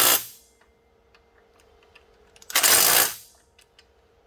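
Power tool run in short bursts, as when driving a bolt home. One burst stops just after the start and another comes about two and a half seconds in, with small clicks of tools being handled between them.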